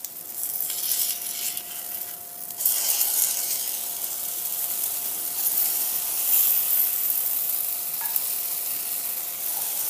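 Zucchini and carrot fritters sizzling in a thin layer of olive oil in a nonstick grill pan as they are turned over. The sizzle gets louder about two and a half seconds in.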